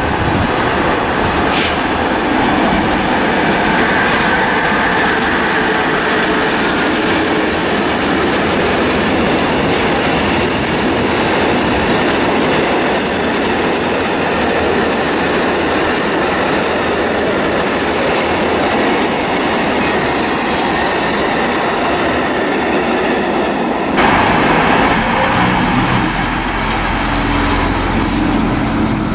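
Freight train of long tank wagons rolling past at speed: steady wheel-on-rail noise with the clickety-clack of the wagons over the rail joints. About 24 seconds in it cuts sharply to a Z 5300 suburban electric train moving along a station platform, with a low steady hum.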